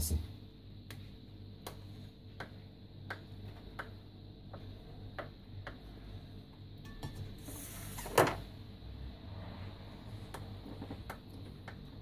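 A kitchen knife cutting a block of fresh white cheese on a stainless steel tray: a run of faint clicks and taps as the blade meets the metal, with one louder clack about eight seconds in.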